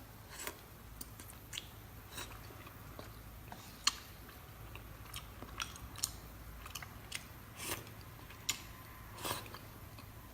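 A person chewing and biting crunchy food close to the microphone: faint, irregular crunches and mouth clicks, a dozen or so, with one sharper crunch about four seconds in.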